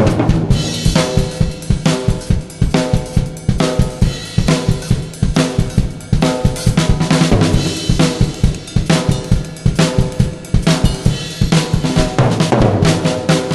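Basix acoustic drum kit played in a solo: fast, dense strokes on snare and bass drum mixed with cymbal and hi-hat hits.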